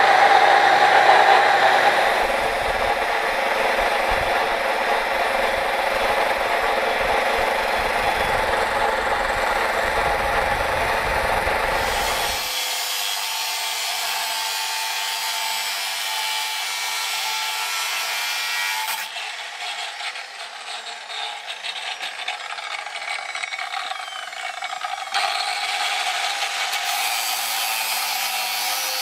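Angle grinder running with a steady whine, then, from about twelve seconds in, its abrasive cut-off disc grinding through metal, in a few stretches that change abruptly.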